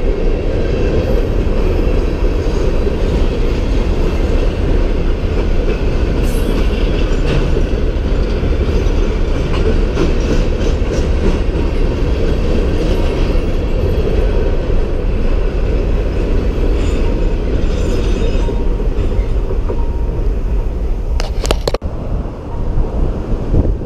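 Freight train rolling across a railroad bridge: a loud, steady rumble of the wagons with a few brief clanks. It cuts off suddenly near the end.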